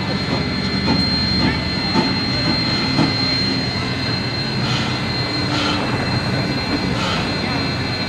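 A train running on the rails: a steady rumble with a thin, high whine over it and a few short clanks.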